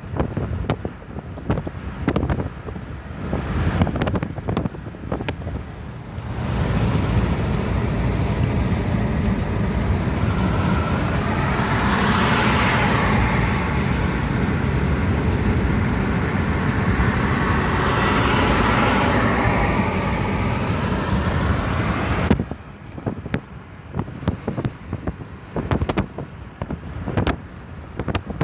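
Car driving with wind buffeting the microphone. About six seconds in a loud, steady rush of wind and road noise sets in, swelling twice, and it cuts off suddenly about 22 seconds in.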